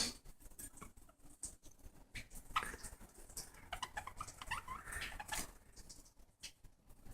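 Small pet birds squabbling on a shared toy: a run of short chirps and squawks in the middle, among scattered clicks and scratches.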